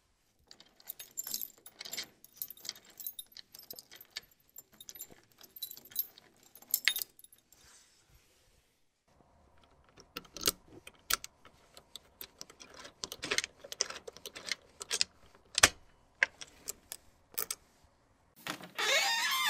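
A knife stabbing repeatedly into potatoes: irregular sharp clicks and scrapes, with a pause about halfway through. Near the end a louder sound that slides in pitch begins.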